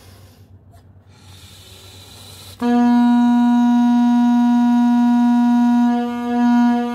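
Homemade balloon-and-PVC-pipe horn: a breathy rush of air, then a loud, steady buzzy note with many overtones starting suddenly about two and a half seconds in. From about six seconds in the horn is swung toward and away from the microphone, and the note swells and fades as it moves.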